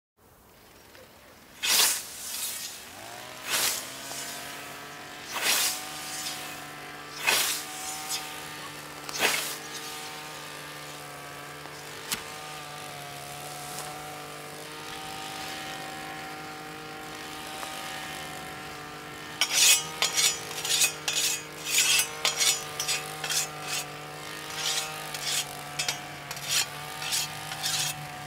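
A whetstone swiped along a scythe blade: single strokes about every two seconds, then a quicker run of several short strokes a second in the last third. A steady engine drone with a pitched hum starts a couple of seconds in and runs underneath.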